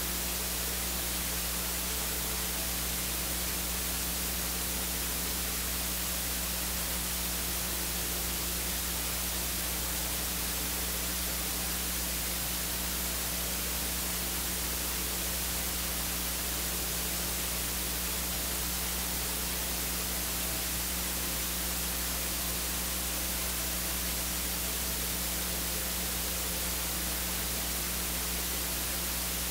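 Steady static hiss with a constant low hum underneath, unchanging throughout; no singing or organ is heard.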